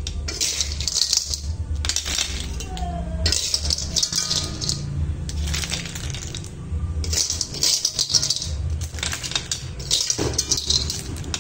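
Sea snail shells clattering and rattling against a wok and a metal slotted spoon as they are scooped out, in repeated bursts of a second or two each.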